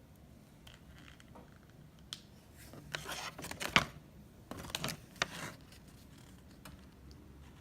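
Toy packaging being opened by hand: two short bouts of crackling and snipping about three and five seconds in, with a sharp click in the first.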